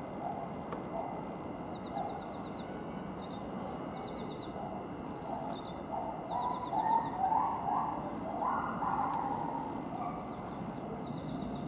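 Crows cawing several times, loudest about six to nine seconds in, while a small bird repeats a short, high trilling chirp.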